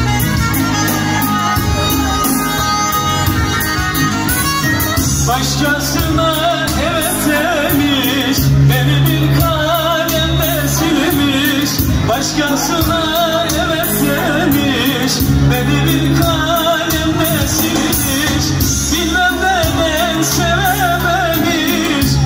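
Live Turkish folk music: a kabak kemane (bowed gourd fiddle) plays held notes over electronic keyboard backing with a heavy, recurring bass beat. About five seconds in, a man's voice comes in singing an ornamented, wavering melody over the keyboard.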